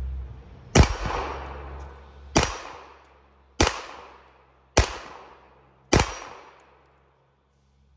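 Five shots from a 9mm Canik TP9SFX pistol fitted with a 45 Blast compensator, fired about a second or a second and a half apart, each trailing off in a long echo.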